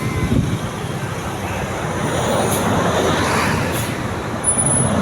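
Road traffic running past: steady engine rumble and tyre noise from passing vehicles, buses among them.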